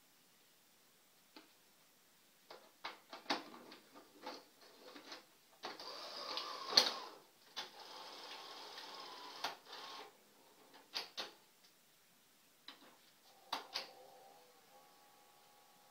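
Sony Betamax SL-F60 video deck taking in a cassette: plastic clicks and knocks as the tape is pushed into the front slot, then about four seconds of whirring from the loading mechanism with one sharp clunk in it. A few more mechanical clicks follow near the end as play is engaged.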